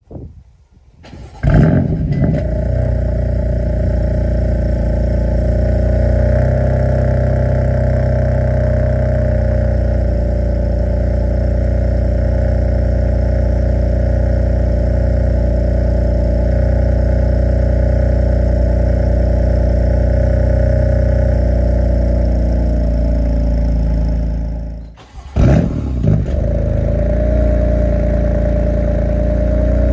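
BMW M4's S55 twin-turbo inline-six starting about a second and a half in, then idling steadily through the stock exhaust with its valves closed. Near the end the same engine starts again and idles with a VRSF midpipe in place of the stock one, valves still closed.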